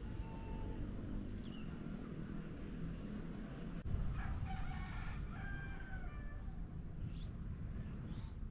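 A rooster crowing once, a long wavering crow starting about halfway through, over a steady outdoor background with a few short high chirps.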